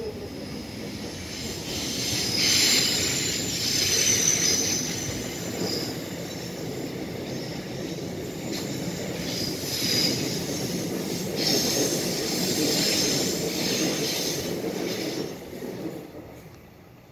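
A commuter electric train passing close by, its wheels squealing with high-pitched ringing over the rumble of the cars. The sound swells from about a second in and fades away near the end.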